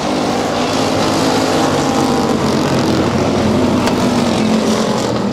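Several dirt-track stock cars racing together, their engines running loud and steady at once.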